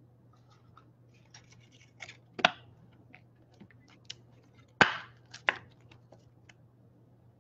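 A trading card being handled and slipped into a plastic sleeve and a rigid plastic top loader: soft plastic rustles and small ticks, with three sharp clicks and scrapes, the loudest about five seconds in.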